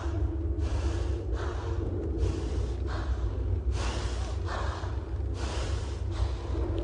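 Heavy, rhythmic breathing, about one breath a second, over a steady low drone.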